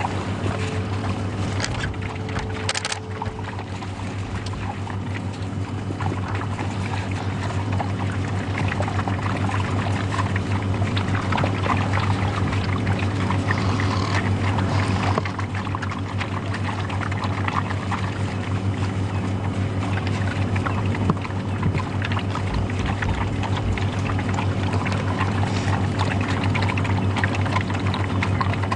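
Safari vehicle engine idling steadily: a constant low hum under a steady hiss.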